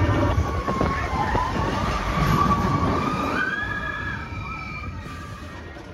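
Roller coaster riders screaming over the low rumble of the coaster train, several voices sliding up and down in pitch, with one long held scream about three seconds in; the sound fades toward the end.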